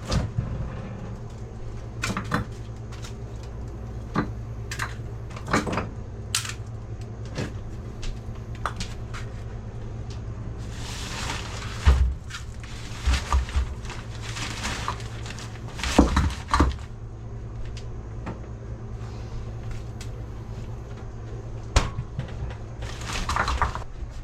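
Scattered knocks and clatter, with short stretches of rustling, over a steady low hum.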